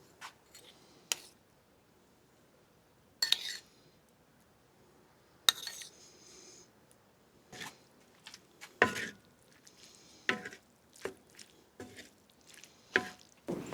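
Dishes and cutlery being handled: about a dozen irregular clinks and knocks, a few of them ringing briefly.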